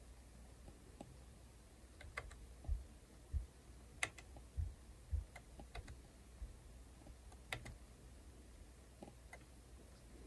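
Faint, irregular clicks of a stylus tip tapping and stroking on a tablet's glass screen during digital shading, with a few soft low thumps.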